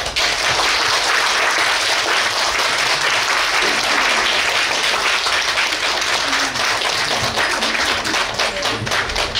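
Audience applauding, a dense steady clapping that thins into separate claps near the end.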